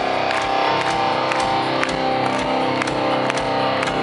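Live rock band playing: electric guitar chords held over a steady drum beat, heard loud from the audience.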